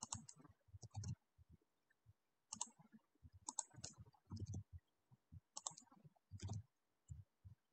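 Faint computer keyboard keystrokes and mouse clicks: short groups of sharp clicks about every second as numbers are typed into a form field.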